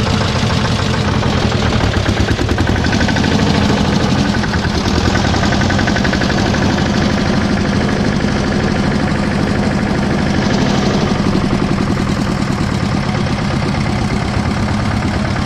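Goldoni mini tractor's engine running close up, with a rapid, even knocking beat, as the tractor pulls away slowly from a stop.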